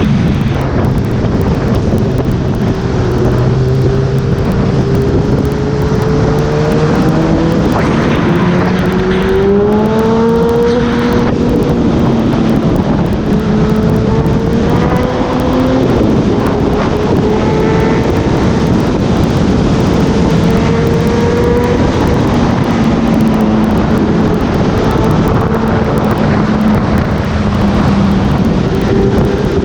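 Honda CB1000R's inline-four engine running on the move, over heavy wind noise on the microphone. The engine note climbs about six to eleven seconds in, dips sharply near sixteen seconds, then holds fairly steady.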